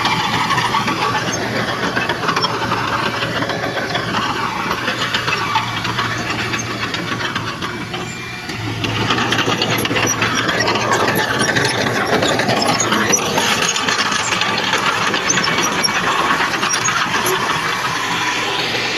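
Heavy earthmoving machinery running: a diesel engine working steadily with mechanical rattling, dipping briefly about eight seconds in before carrying on.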